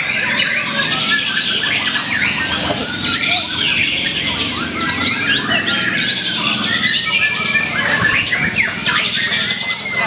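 White-rumped shama (murai batu) singing a varied song of quick rising and falling whistles and trills, over a dense chorus of other caged songbirds singing at once.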